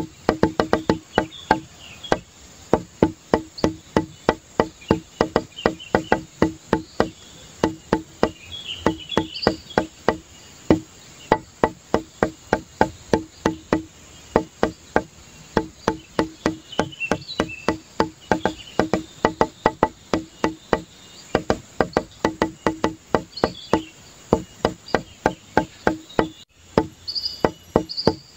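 Background music: a fast, even beat of short knocking, wood-block-like notes on one low pitch, with high chirping sounds scattered through it.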